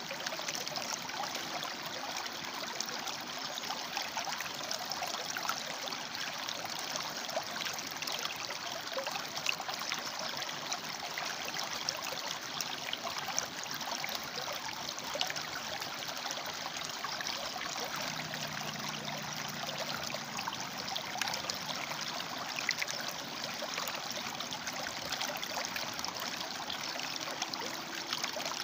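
River water flowing over and between rocks: a steady rushing with small splashes and trickles throughout.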